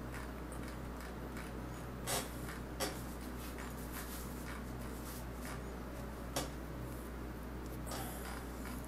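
Computer mouse being scrolled and clicked: four soft clicks, at about two seconds, three seconds, six seconds and eight seconds in, over a steady low electrical hum.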